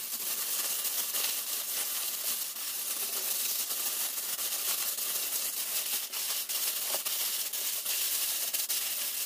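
Thin plastic roasting sleeve crinkling and crackling steadily as hands knead and squeeze a pork knuckle in marinade inside it.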